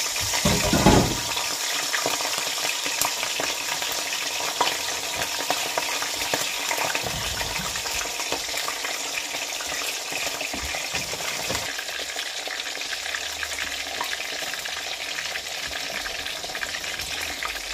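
A whole flour-dusted pompano deep-frying in hot oil: a dense, steady sizzle of oil bubbling around the fish, loudest about a second in.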